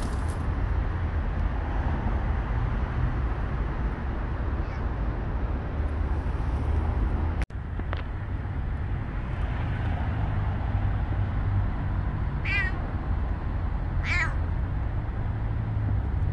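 Domestic cat meowing twice near the end, two short calls about a second and a half apart, over a steady low rumble.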